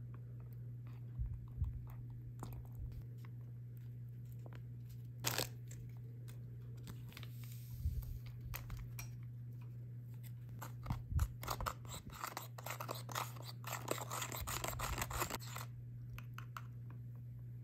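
A small plastic powder packet from a candy-making kit crinkling and being torn open, its powder shaken into a plastic tray, with light taps and clicks of the plastic tray. The crinkling is densest and loudest for several seconds in the second half.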